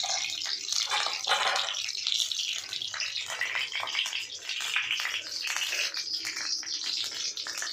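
Cumin seeds and dried red chillies sizzling in hot oil in an iron kadhai, a steady crackling sizzle; the cook thinks a little water got into the oil, which makes it splutter.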